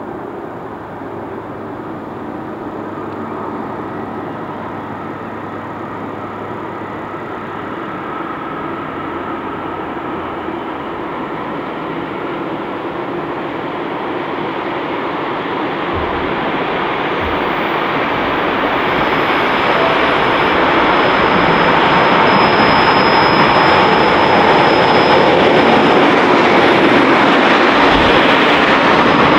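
Diesel locomotive with an EMD 20-645 two-stroke engine approaching and passing at speed, hauling a track-renewal train. The noise grows steadily louder and then holds as the heavy machine wagons roll past close by, with a thin high tone in the middle stretch.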